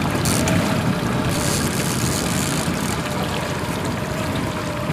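Boat under way at trolling speed: a steady rush of motor noise and water along the hull.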